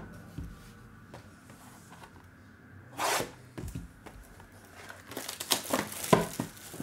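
A cardboard trading-card box torn open with one short rip about three seconds in. Then come light rustles and clicks of cardboard and wrapper as the contents are pulled out.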